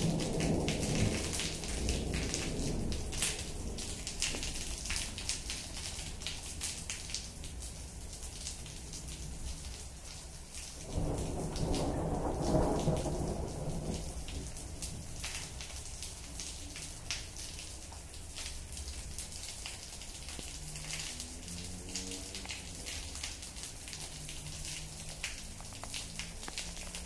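Steady rain falling on a concrete patio, with many small drop clicks and splashes. Thunder rolls at the start and again, louder, about eleven seconds in, each lasting some three seconds.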